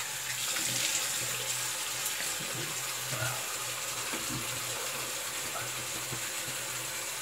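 Bathroom sink tap running steadily while the face is rinsed with water after a shave.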